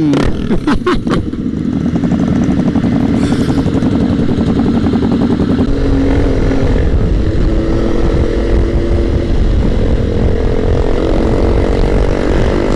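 Sport motorcycle engine heard from on board while riding, running at a steady cruise, with low wind rumble. A few sharp knocks sound in the first second. The engine note drops around the middle and then climbs slowly as the revs build toward the end.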